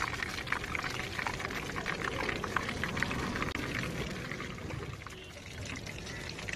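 Hot oil deep-frying, sizzling with dense crackling that thins out about five seconds in.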